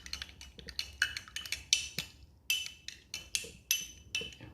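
A spoon stirring hot water and herbs in a glass, clinking against the side again and again, each clink ringing briefly.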